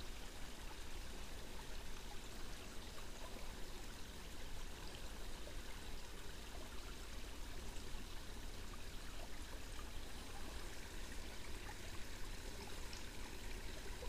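Water trickling and pouring steadily through a beaver dam on a small river.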